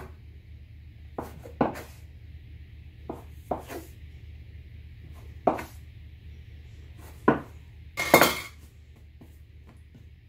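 Metal bench scraper chopping down through bread dough and knocking on a wooden countertop: about eight sharp, separate knocks, the loudest a quick double knock near the end. A faint low hum runs underneath.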